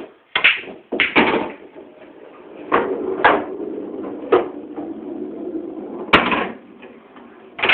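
Pool (billiard) balls clacking: about eight sharp knocks at irregular intervals as the cue strikes and the balls collide, with a low rumble under the knocks through the middle stretch.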